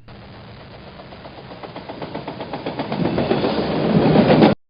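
Train passing, its wheels clattering over the rail joints in a quick even rhythm. It grows steadily louder as it approaches, then cuts off suddenly near the end.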